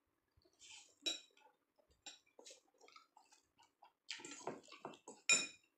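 Metal forks clinking against ceramic bowls, with soft eating sounds from noodles between. One sharp clink comes about a second in, and the loudest comes near the end after a cluster of small clatters.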